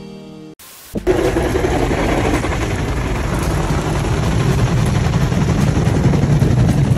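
Automatic car wash running, heard from inside a car whose roof is leaking: a loud, steady rush of spray and machinery rumble, with water pouring into the cabin. It starts suddenly about a second in, after a short stretch of music.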